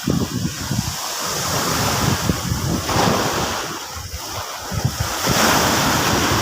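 Sea waves breaking and washing up the beach, with wind buffeting the microphone. A louder wave surges in about five seconds in.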